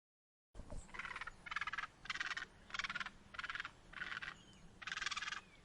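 Egret giving a series of harsh, rasping croaks, about eight calls evenly spaced a little over half a second apart.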